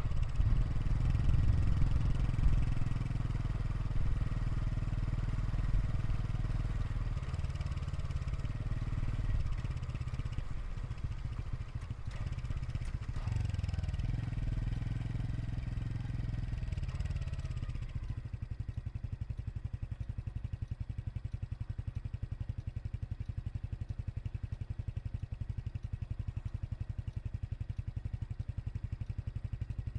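Honda Super Cub 110 Pro's single-cylinder four-stroke engine and exhaust, running unevenly and louder with the engine speed changing for about the first half. A little past halfway it drops to a steady idle with an even exhaust beat.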